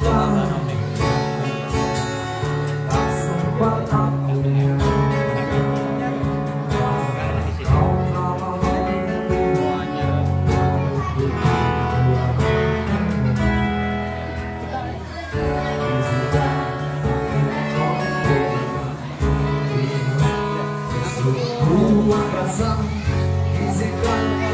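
Live acoustic band playing a song: strummed acoustic guitars over a bass guitar line and cajon beat, with a man singing into a microphone.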